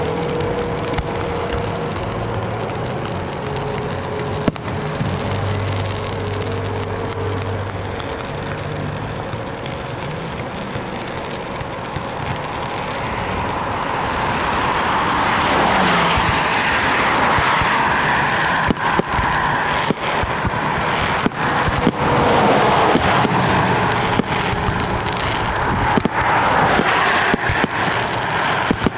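Steady vehicle and road noise with some wind, swelling from about halfway through, with scattered sharp cracks in the last ten seconds.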